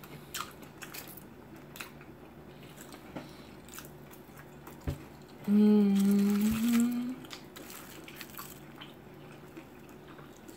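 Close-miked eating: scattered crunches and smacks of chewing on pickles and sandwiches. A little past the middle, a person hums one held "mmm" for about a second and a half, rising slightly at the end.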